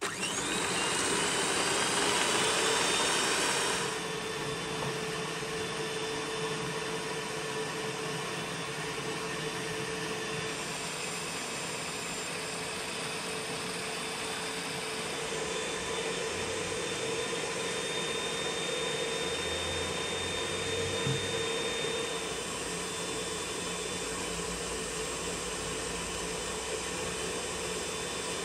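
Electric stand mixer switched on and running, its beaters whipping eggs and sugar. It starts with a short rising whine, is loudest for the first few seconds, then settles into a steady motor whine.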